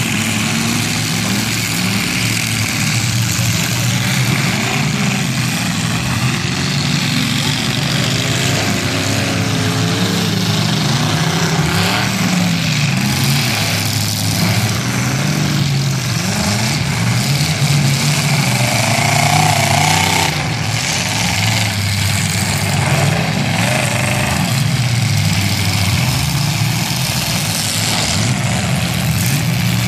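Several demolition derby cars' engines running and revving together, their pitches rising and falling as the cars drive and ram one another.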